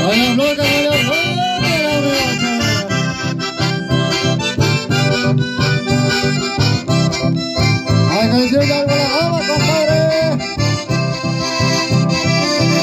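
Dance music with a steady, even beat, loud throughout. A voice rises over it twice, near the start and again about eight seconds in.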